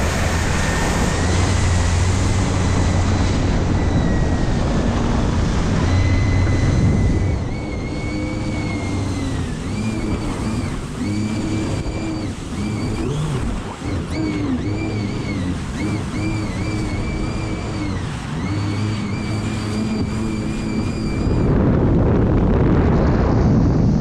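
Taiga Orca electric personal watercraft under way: a high electric-motor whine whose pitch dips and recovers over and over as the craft runs over the chop, over a steady rush of wind and spray. Near the end the whine drops away and a louder rush of wind and water takes over.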